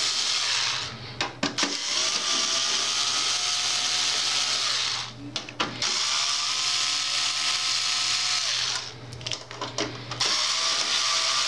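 Cordless electric screwdriver running as it backs out the display module's mounting screws, in four stretches with short pauses. In each pause there are a few clicks, and the motor's whine rises briefly each time it starts again.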